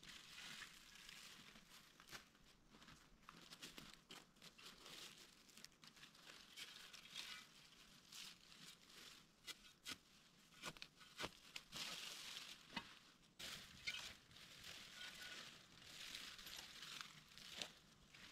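Faint crinkling and crackling: many small, irregular clicks and rustles.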